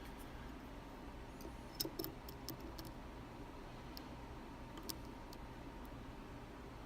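Faint, irregular little metallic clicks of a flag pick working the pins inside an Abus D10 dimple lock, probing for an overset pin; a cluster of clicks comes a couple of seconds in, then a few single ones.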